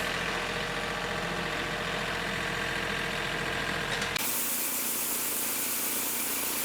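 An engine running steadily, which breaks off abruptly about four seconds in and gives way to a steady hiss.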